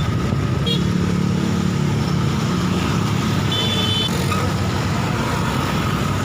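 An engine running steadily, a continuous low hum with no breaks.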